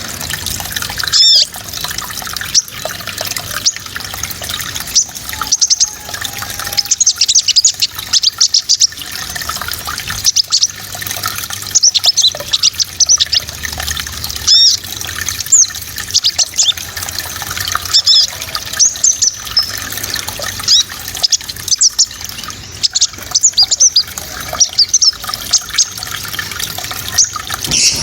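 A small songbird singing a fast string of sharp, high-pitched chirps and trills, the rapid 'tembakan' (shooting) style used as training song for songbirds, over a steady watery rush.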